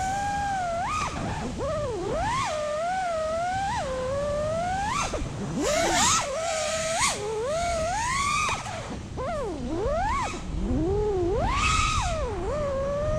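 FPV freestyle quadcopter's brushless motors (Brotherhobby Avenger 2207.5, 2350 kV) and HQProp J37 propellers whining. The pitch rises and falls continuously with the throttle, dropping sharply twice as the throttle is chopped and swooping back up, over a low wind rumble.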